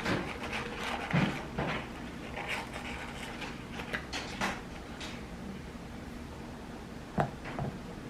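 Close-up eating sounds: irregular chewing and mouth noises, with scattered clicks and light knocks of food being handled.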